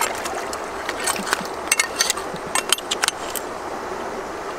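Water splashing and running, with a quick scatter of sharp clicks and slaps between about one and three and a half seconds in.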